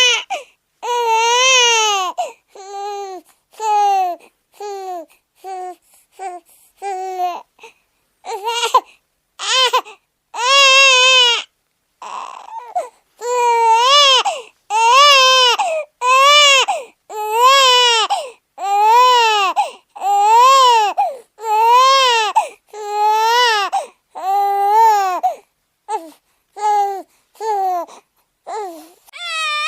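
Baby crying sound effect: a long run of high-pitched wailing cries, each rising and falling in pitch, short and choppy in the first half and longer and more regular from about halfway on.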